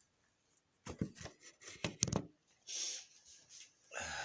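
Handling noises: a quick run of knocks and clicks about a second in, then a short rustle.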